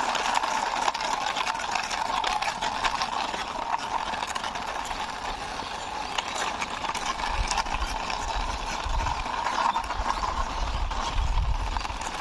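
Plastic toy police car pushed along by hand, its wheels rolling and rattling over a rough concrete wall top as a dense run of small clicks, with a low rumble joining in during the second half.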